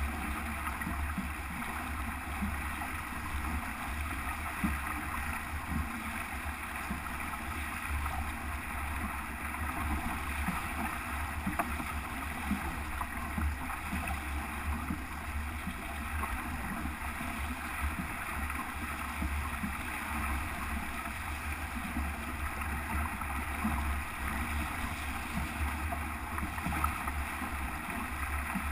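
Wind buffeting the microphone and water rushing past the hull of a sailboat under sail close-hauled. It is a steady rush with a fluttering low rumble and small irregular splashes.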